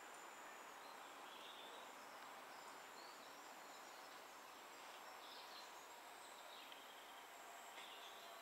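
Near silence: faint steady outdoor background hiss, with a few faint bird chirps scattered through it.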